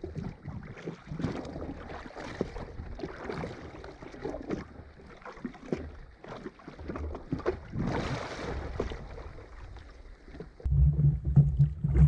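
Choppy sea water slapping irregularly against a jet ski's hull, with wind on the microphone. Near the end a louder low rumble of wind buffeting the microphone comes in.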